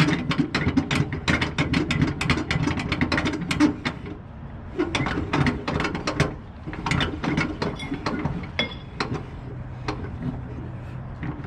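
Ratchet on a flatbed cargo strap being cranked: rapid runs of clicks in three bursts with short pauses between them, as the strap is tightened.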